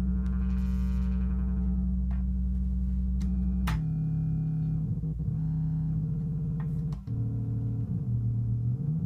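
Moog Werkstatt-01 analog synthesizer sounding a low, buzzy bass drone while its knobs are turned. The tone brightens and dulls again about half a second in, the note changes with a click near four seconds and again at about seven, and the pitch glides up near the end.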